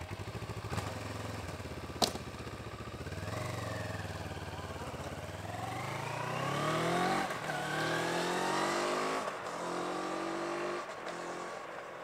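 CFMoto 650MT's 650 cc parallel-twin engine idling, with one sharp click about two seconds in. The bike then pulls away, its engine revving up and shifting up several times, and fades as it rides off.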